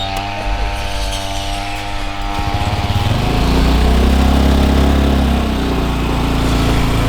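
Engine running steadily, then revving about two and a half seconds in, growing louder and settling into a steady heavier run.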